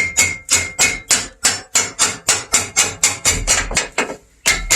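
Rapid hammer blows on metal, about four a second with a faint ring on some strikes, knocking at the reinforcing bar of a Lada Vesta Cross's front subframe to get it off. The blows pause briefly near the end, then start again.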